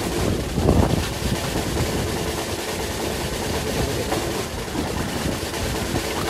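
A fishing boat's engine running steadily, with rattling and a rush of wind and water.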